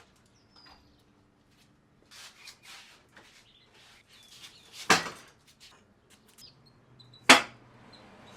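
Hand work on a motorcycle during an oil change: light clicks and scrapes, then two sharp knocks about two and a half seconds apart. A few faint bird chirps sound in the background.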